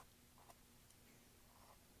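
Near silence with a few faint scratches of a paintbrush dabbing and flicking acrylic paint onto canvas.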